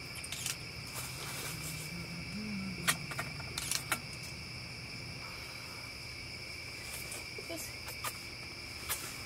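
A steady chorus of night insects chirping at two high pitches, with a few light clicks and knocks.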